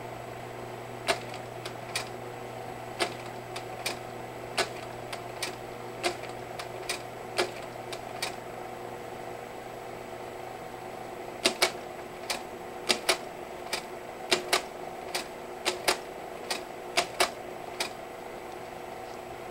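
Kodak Carousel 850H slide projector running with a steady hum from its cooling fan, while sharp mechanical clicks come from the slide-change mechanism as the remote's buttons are pressed. There is a run of clicks, a pause of about three seconds, then a faster run, some clicks in quick pairs.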